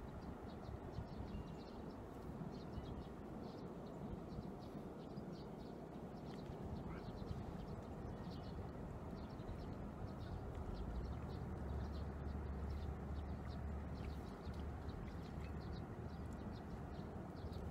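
Wind blowing over the microphone: a steady rushing that swells into a heavier low rumble from about eleven to fourteen seconds in. Faint short high chirps are scattered throughout.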